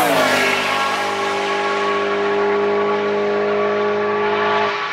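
A car passing at speed: its engine note drops sharply in pitch as it goes by, then holds a steady note as it drives away, easing off just before the end.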